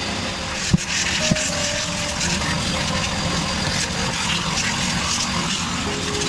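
Vacuum cleaner running steadily as it clears metal chips from a milling machine's table and vise, with two short knocks about a second in.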